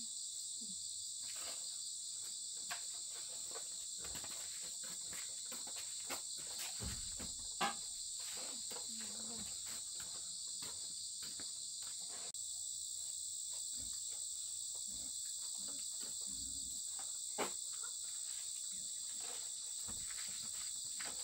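Steady outdoor chorus of insects trilling without a break, with scattered faint clicks and taps over it. A sharper knock comes about seven and a half seconds in and another near the end.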